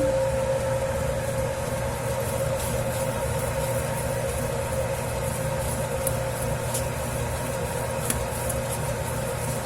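Dough kneading machine running steadily with a 10 kg batch of pizza dough: a constant motor hum holding one steady tone, with a few faint ticks over it.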